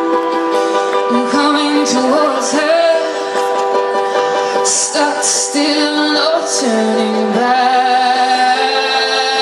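Live band music with a female lead singer singing over sustained instrument notes, played through a festival PA and heard from within the audience.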